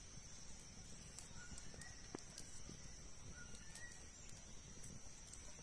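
Faint forest ambience: a steady high insect drone, a few short bird chirps, and scattered light clicks.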